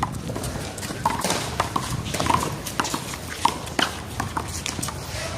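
One-wall handball rally: a rubber ball slapped by hand, smacking the wall and bouncing off the pavement, in an irregular run of sharp slaps.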